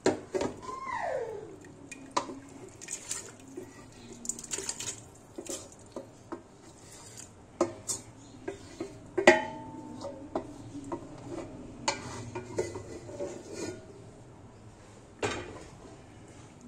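A black spoon scrapes meat off a steel plate into a steel pressure cooker pot and stirs, with repeated knocks and clinks of spoon and plate against the metal. A brief falling squeal comes near the start, and the loudest clank comes about nine seconds in.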